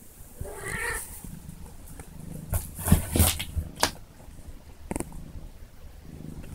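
Kitten purring steadily while it rolls about on a wooden floor, with several sharp rubbing knocks as its body and harness brush the floor and wall, the loudest about three seconds in.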